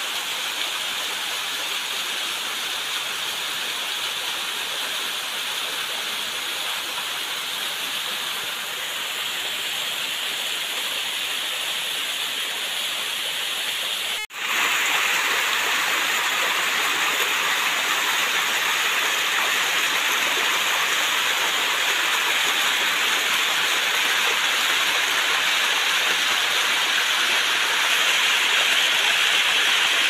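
Small waterfall with a modest flow splashing down a mossy rock face, a steady rush of falling water. It breaks off for an instant about halfway through, then comes back louder and nearer.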